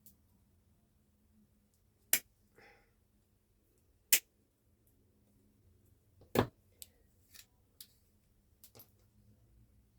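Sharp clicks of small hard objects being handled at a workbench: three loud clicks about two seconds apart, then a few lighter ticks.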